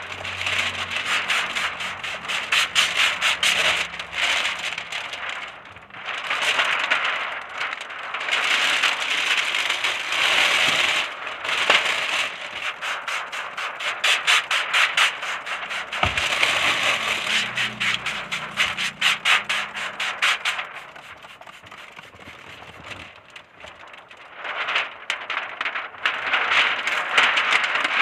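Plastic window tint film being handled and worked against car glass, crackling and scraping in stretches of a few seconds, with a quieter patch a little after two-thirds of the way through.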